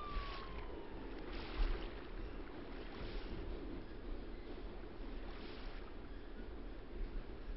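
Designed ambience of water lapping at a concrete quay wall: a steady low rushing with soft washes of water every second or two. In the first second a held siren-like tone slides down in pitch and fades out.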